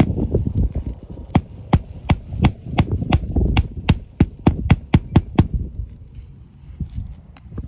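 Hammer striking in a quick steady rhythm, about two to three blows a second, nailing down a replacement roof shingle; the blows stop about five and a half seconds in, with a low rumble underneath.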